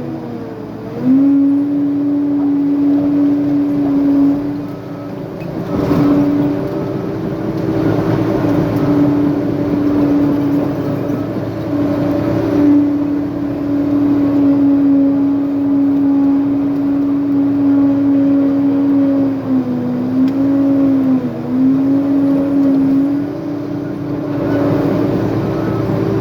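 Diesel engine of a heavy earthmoving machine running steadily at high revs, its pitch dipping briefly about a second in and twice more around twenty seconds in as it takes load. A few short knocks sound over it.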